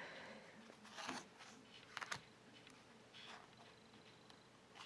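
Faint rustle and slide of thick tarot cards being handled, a few soft brushes about a second apart against near silence.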